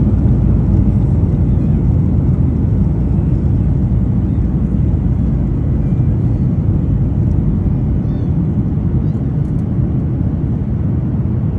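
Steady low rumble of an airliner in flight, engine and airflow noise heard inside the cabin, holding an even level throughout.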